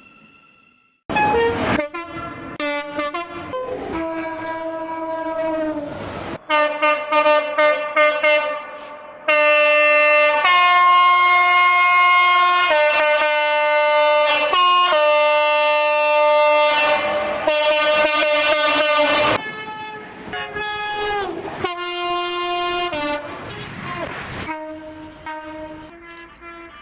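British train horns sounding in a quick succession of separate clips: a run of short blasts, then a long blast that switches back and forth between its high and low notes. Near the end a horn's pitch slides down as the train passes.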